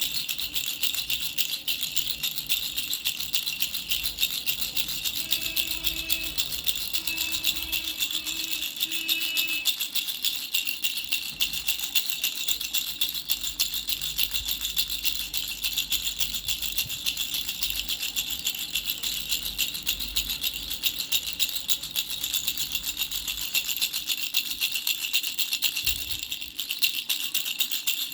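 Baby rattle with three bells shaken continuously, a dense, rapid jingling rattle. Briefly eases off near the end.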